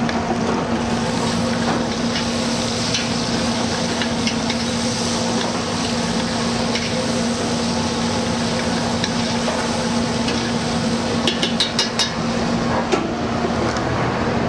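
Chopped onions sizzling in bacon fat in a large stockpot as they are stirred with a spoon. Near the end a few quick clinks of the spoon against the pot are heard, with a steady low hum underneath.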